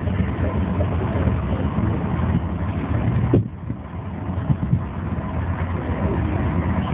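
A classic car's engine running at low revs as the car creeps forward at walking pace, a steady low rumble. The overall noise drops suddenly about halfway through.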